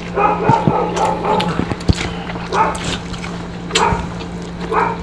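A dog barking a few separate times in the background, over small clicks of food being picked up by hand.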